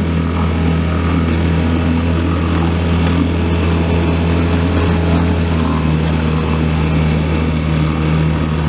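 Small Johnson outboard motor running steadily at low throttle, pushing a small boat along with an even hum.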